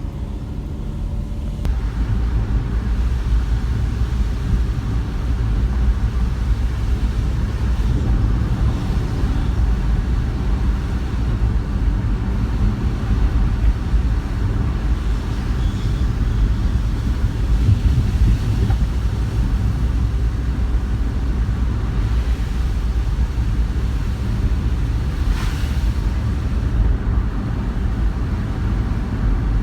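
Car driving, heard through a dashboard camera: a steady low rumble of road and engine noise that grows louder about two seconds in.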